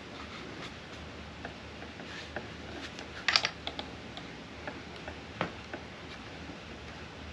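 Light clicks and taps of small RC crawler parts and tools being handled during assembly. About three seconds in comes a short cluster of sharper clicks, the loudest part, and a single click follows about five seconds in.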